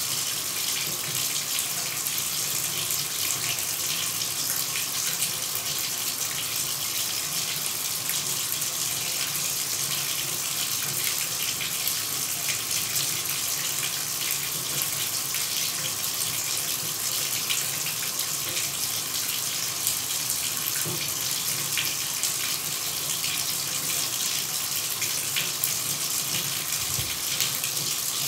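Shower running: a steady, even hiss of spraying water that does not change.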